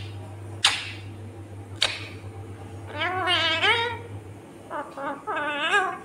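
Rose-ringed parakeet calling: two short sharp squawks about a second apart, then wavering, warbling calls in the second half.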